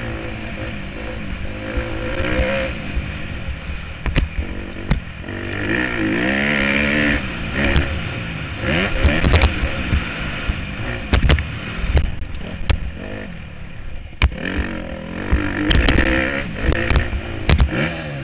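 Motocross dirt bike engine revving hard, its pitch rising and falling repeatedly as the rider opens and closes the throttle around the track. Heard through a helmet camera, with a rush of wind and a scattering of sharp knocks and clatter.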